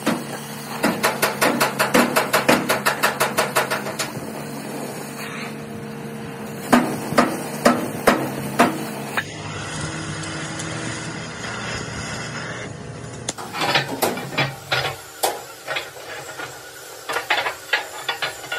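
Hammer blows on steel in a metalworking shop. First comes a quick run of light strikes, then several heavier ringing blows about two a second. After a few seconds of steady noise, irregular strikes start again.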